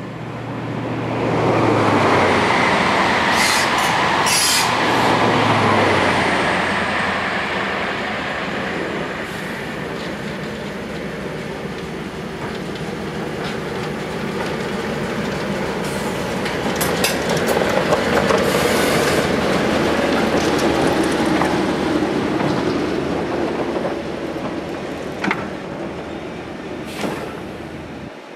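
BR Class 08 diesel shunter's English Electric six-cylinder diesel engine running as it hauls coaches slowly along the platform. Wheels squeal and clank on the rails as the coaches roll past, with a few sharp clicks near the end.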